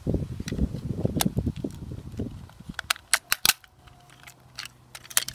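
Plastic housing of a Drayton Digistat wireless thermostat being pried open with a small screwdriver. Scraping and handling noise comes first, then sharp plastic clicks and snaps as the case's clips give way. The loudest are a quick run of snaps about three seconds in.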